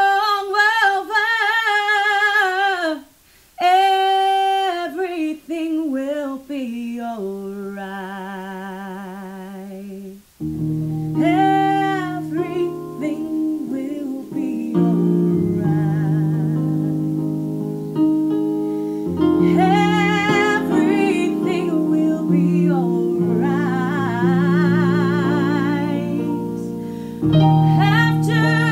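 A woman singing a slow song solo, unaccompanied at first, ending the opening phrase on a long held note with vibrato; about ten seconds in, an instrumental accompaniment of sustained low notes enters and she continues singing over it.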